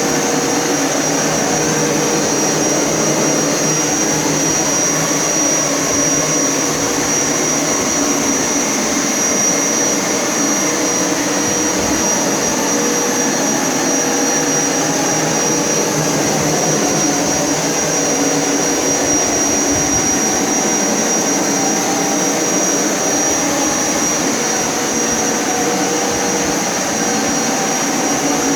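Hoover Power Scrub Elite pet upright carpet cleaner running steadily while shampooing carpet, a continuous motor and suction roar with a high steady whine.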